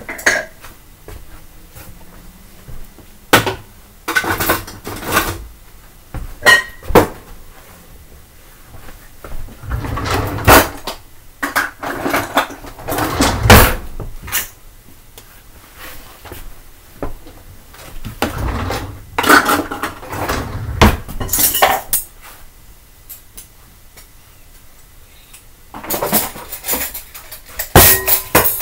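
Dishes being done: plates and cutlery clattering and clinking against each other in irregular bursts, with quieter pauses between.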